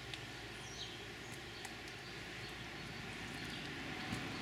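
Quiet background ambience: a steady low hum under an even hiss, with a few faint ticks.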